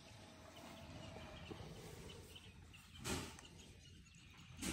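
Young elephant close over the microphone, breathing out in two short puffs about a second and a half apart, over faint background noise.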